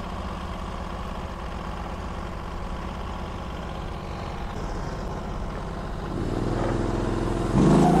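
Portable band sawmill's gasoline engine idling steadily, then throttled up. The revs climb about six seconds in and jump sharply near the end as it comes up to cutting speed.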